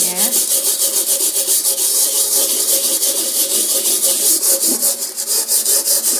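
Wire brush scrubbing a frying pan crusted with burnt-on grease and carbon, a loud rasping scrape in rapid, even back-and-forth strokes as the degreaser-softened crust is worked loose.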